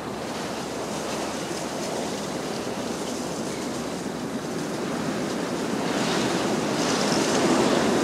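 Ocean surf: a steady wash of breaking waves that swells louder over the last two seconds.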